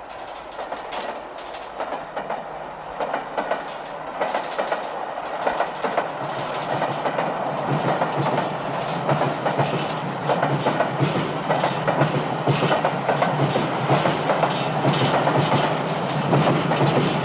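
Train passing on rails, its wheels clattering with a low rumble, growing steadily louder.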